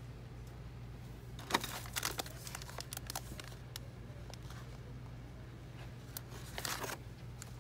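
Plastic retail packaging crinkling and clicking as it is handled off a store shelf, in two spells: a longer one early on and a shorter one near the end. A low steady hum runs underneath.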